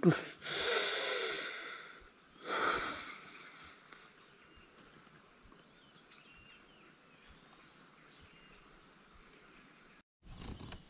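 Two brief hissing rushes in the first three seconds, the first the louder and longer, then quiet riverside ambience with faint high chirps.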